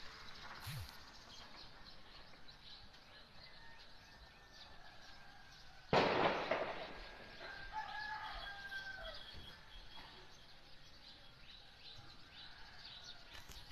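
A single gunshot about six seconds in, a sharp crack with a long echo that dies away over about a second. A rooster crows just after it.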